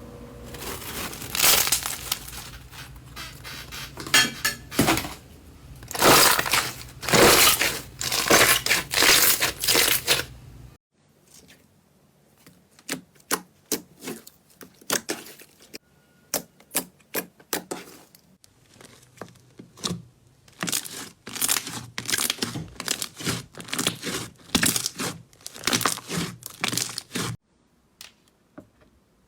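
Slime being squeezed and pressed by hands, crackling and popping in quick bursts. After an abrupt cut about ten seconds in, it turns to sharper, separate clicks and pops that grow denser, then stops near the end.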